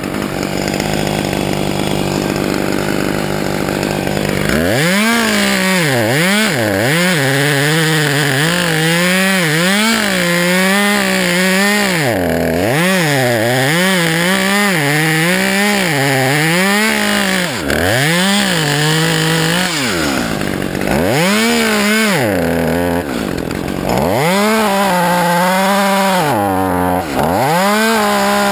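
Two-stroke chainsaw idling steadily, then, about four seconds in, revving up and dipping in pitch about once a second as it cuts into the mimosa trunk, with a few brief drops in revs.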